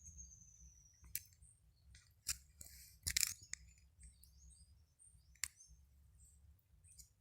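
Wild birds calling in thin, high whistles and short chirps, with one long whistle sliding slightly downward at the start. A few sharp clicks are mixed in, the loudest just after the middle.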